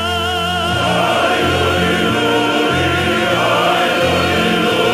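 Large male choir with instrumental accompaniment performing a Russian folk song. A solo tenor's held note with vibrato ends in the first second, then the full choir comes in with sustained chords over steady low bass notes.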